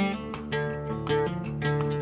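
Background music led by a strummed guitar, with strums at a steady beat of about two a second.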